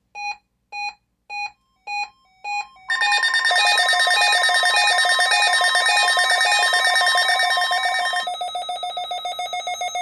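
Several NOAA weather alert radios going off together for a Required Weekly Test. First comes a string of short beeps about twice a second. From about three seconds in, a dense mix of alarm beeps and tones joins them; part of it cuts out about eight seconds in, leaving a fast pulsing tone.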